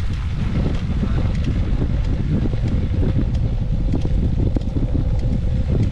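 Wind rushing over the microphone of a camera riding along on a track bicycle in motion, a steady low rumble with a faint constant tone underneath.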